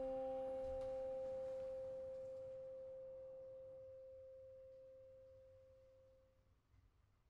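Last chord of a mallet percussion ensemble ringing out and fading away: a steady pitched tone that dies slowly over about six seconds, with a lower tone beneath it fading out after about two and a half seconds.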